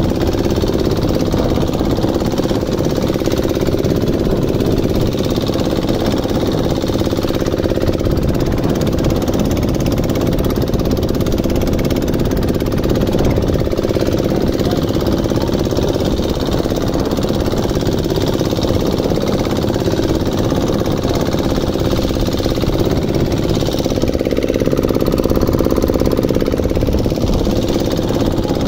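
Fishing boat's engine running steadily under way, a constant loud drone.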